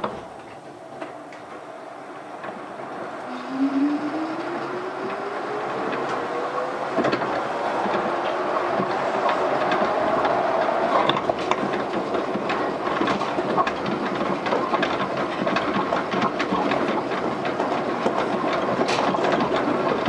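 Yukarigaoka Line 1000 series rubber-tyred people mover heard from inside a passenger car as it pulls away: a thump at the start, then a drive whine rising steadily in pitch as the train gathers speed. Running noise with scattered clicks and knocks from the guideway follows.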